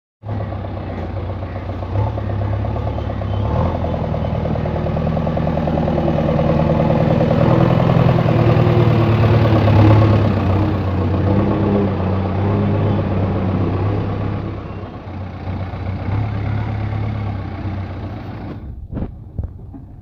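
JCB 3DX backhoe loader's diesel engine running steadily as the machine moves close by. It is loudest about halfway through and grows quieter after that. Near the end it drops away, and a few sharp knocks follow.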